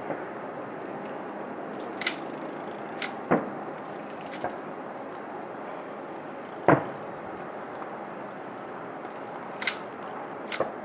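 Aerial firework shells bursting in the distance: separate booms about three seconds in and, loudest, near seven seconds, with sharper, higher-pitched cracks at about two seconds and twice near the end, over a steady background hiss.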